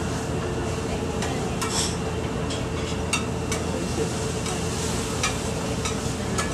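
Metal spatula scraping and clicking against a flat iron griddle while oyster omelettes sizzle on it, with sharp clicks now and then over a steady hum.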